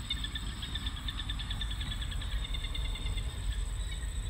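Insects chirping in rapid, even, high-pitched pulses.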